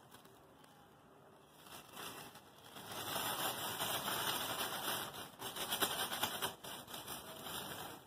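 Compost being scooped from a drum and poured into a bag: a dense crackling rustle of falling granules and handled bag, starting about three seconds in.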